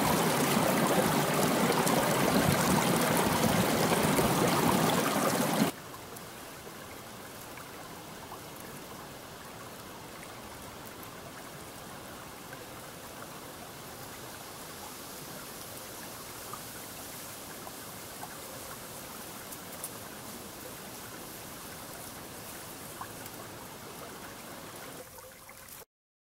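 Spring-fed headwater creek rushing and gurgling between snow-covered rocks, loud and steady; about six seconds in it cuts abruptly to a much softer, steady flow of slow water along an ice-edged, grassy bank, with a few faint ticks. Silence just before the end.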